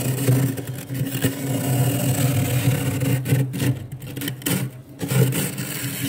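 Steel tumbler's rim scraping thick, flaky frost off the inside of a freezer, a loud gritty rasp in repeated strokes with short breaks in the second half. A steady low hum runs underneath.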